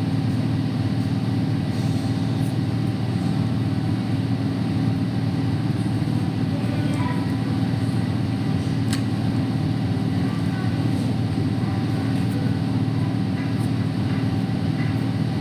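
Steady low mechanical rumble with a constant hum, unchanging in level, with faint voices in the background.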